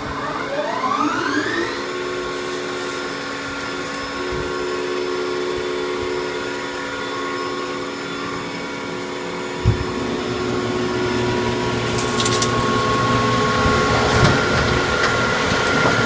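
1996 Romi Bridgeport Power Path 15 CNC lathe running, its whine rising in pitch over the first two seconds as the spindle spins up, then holding a steady pitch. A sharp knock comes about ten seconds in, and a rougher, noisier sound joins the steady whine after it.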